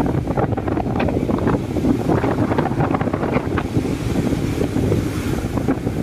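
Strong wind buffeting the microphone in a steady, crackling rumble, over the wash of surf breaking on the beach.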